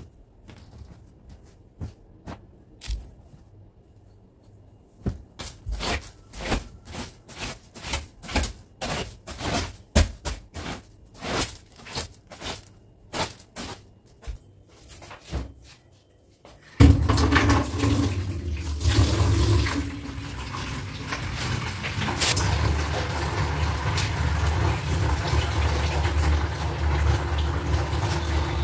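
A quick irregular run of light knocks and flaps, then about seventeen seconds in water suddenly starts gushing steadily, with a low hum under the rush.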